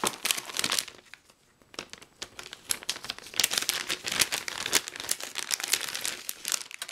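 Metallized anti-static bag crinkling and rustling as a graphics card is slid out of it. There is a short lull about a second in, then steady crinkling until it stops near the end.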